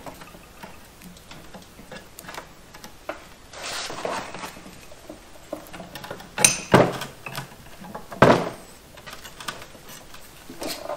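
Scattered metal clinks and knocks from a ball joint press kit being handled: adapters and cups rattled in the tool's steel case and the press fitted onto a steel control arm. The sharpest knocks come about six and a half seconds in and again about eight seconds in.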